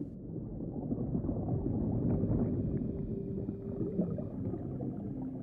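Low, churning underwater-style rumble with faint held low tones beneath it; the tone drops lower about four and a half seconds in.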